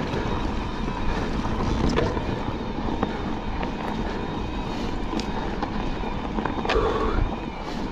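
E-mountain bike climbing a dirt trail: tyres rolling over the ground and wind rushing over the microphone in a steady rumble, with a faint steady whine and a few knocks and rattles from the bike over bumps.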